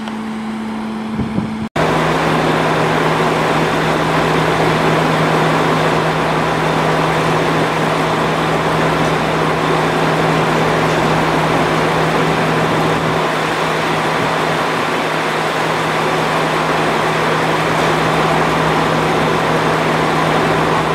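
Diesel engine of a JR Kyushu Kiha 40-series railcar idling at a standstill, a loud, very steady drone with a constant low hum. For the first second or two a quieter, steady idling hum is heard, then the sound switches abruptly to the close, louder idle.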